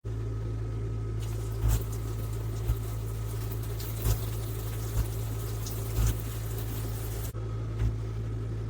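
Water running from a handheld shower head, spraying steadily into the tub with a low rumble, with short knocks about once a second.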